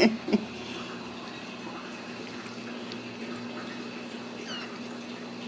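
A steady background hum, with two short loud sounds right at the start and a faint high mew from a Ragdoll kitten about four and a half seconds in.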